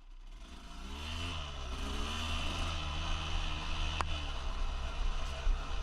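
Two-stroke trail bike engine running, its revs rising and falling in the first couple of seconds and then holding steadier. A single sharp click about four seconds in.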